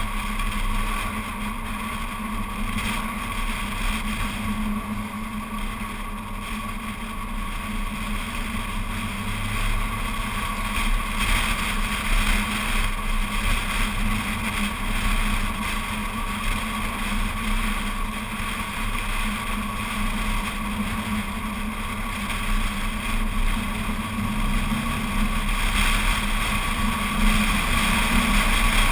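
Road and wind noise from a moving car, picked up by a camera mounted outside the car's door, with a steady drone underneath. It swells a little partway through and again near the end.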